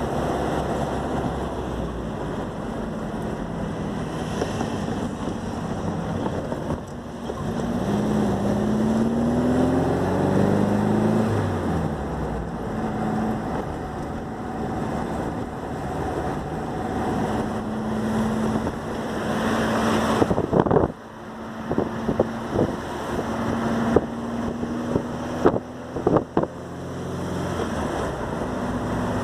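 Puma GTS's air-cooled Volkswagen flat-four boxer engine pulling hard while driving, with wind noise. Its pitch climbs steadily from about eight to eleven seconds in, then holds steady after a shift. The engine note drops away abruptly about twenty-one seconds in, and a few sharp knocks follow.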